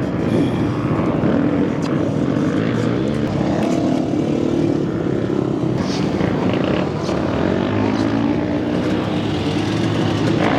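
Several dirt bike engines running at once, their overlapping drone rising and falling in pitch without a break.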